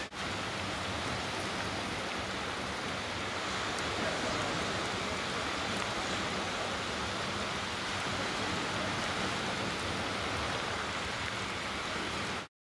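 A steady rushing hiss with a brief dropout just after the start, cutting off suddenly near the end.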